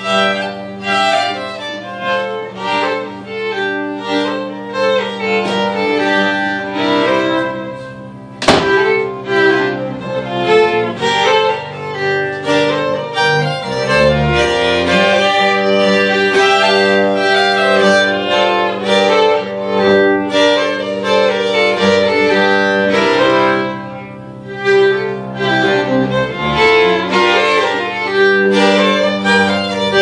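Live acoustic string trio playing a fiddle tune: two fiddles over a bowed upright bass. A single sharp knock sounds about eight seconds in.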